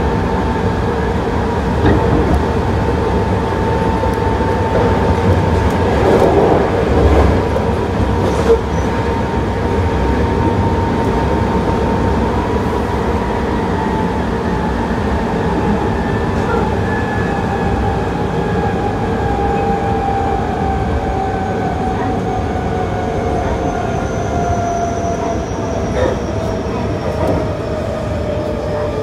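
Hankyu 8000 series electric train running, heard from inside the car: a steady whine from its Toshiba GTO-VVVF traction inverter and motors over the rumble of wheels on rail. From about halfway the whine slowly falls in pitch as the train slows, with a few sharp clicks from the track.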